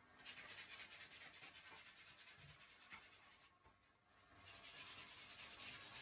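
Faint scratchy rubbing and handling noise from a miniature model bus being handled and fitted with its horn module, with a short lull a little past halfway.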